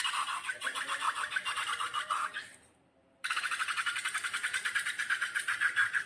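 Slime being stretched and pressed by hand, giving fast crackling clicks, about a dozen a second. There are two spells, with a short silent break about two and a half seconds in.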